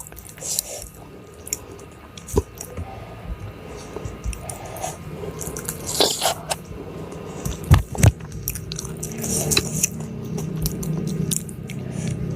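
Close-miked eating: biting and chewing food, with sharp crisp bites between wetter chewing. A low steady hum builds underneath in the second half.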